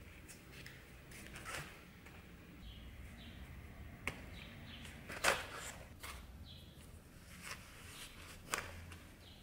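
Leather being hand-stitched with two needles: thread drawn through the leather in short pulls with small squeaks and rustles, and a few brief sharp sounds, the loudest about five seconds in.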